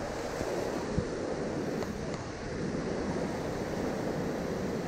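Sea surf breaking and washing over rocks, a steady rushing noise, with a single short knock about a second in.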